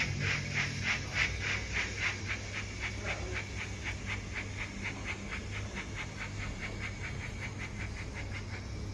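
Simulated steam-locomotive chuffs from a Zimo MS480F DCC sound decoder playing the Rocket sound file through the model's small speaker, a steady beat of about three to four puffs a second. The chuffs grow fainter as the model runs away.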